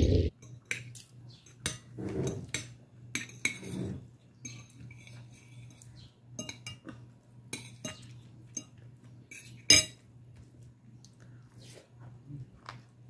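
Eating by hand from a glass plate: scattered small clicks and clinks as fingers and food touch the plate, with one sharper clink about ten seconds in. A faint steady hum runs underneath.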